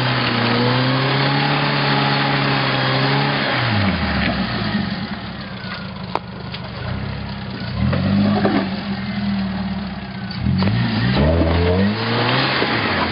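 Jeep Wrangler TJ engine revving in bursts while crawling up a rocky trail in low gear. The revs ease off about four seconds in and pick up again around eight and eleven seconds in. About six seconds in there is a single sharp knock.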